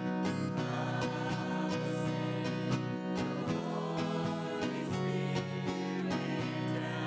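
Country-style music with strummed acoustic guitar.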